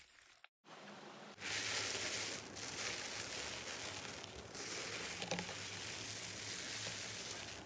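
Slime being handled and pressed by hand, giving a continuous soft crackling, rustling hiss that starts after a brief silent break about half a second in.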